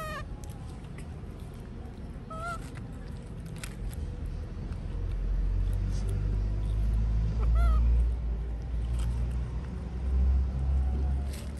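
Short high animal calls, three times several seconds apart, over a low rumble that swells and is loudest in the second half.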